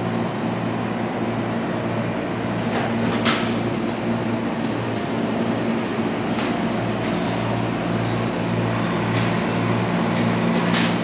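Steady low hum of air-conditioning and ventilation equipment, with a pulsing drone underneath. A few sharp clicks cut through it, the loudest about three seconds in.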